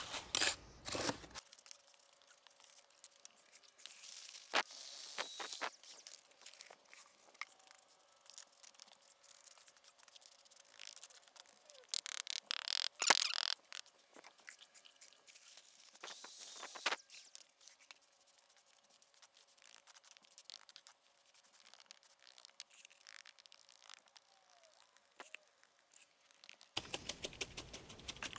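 Faint, scattered scrapes and taps of a hand tool packing and smoothing wet concrete into a wooden form, with busier bursts of scraping about four, twelve and sixteen seconds in.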